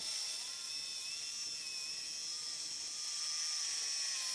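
Power tool cutting 1-inch square steel tubing: a steady high-pitched hiss of the cut with a faint wavering motor whine beneath it.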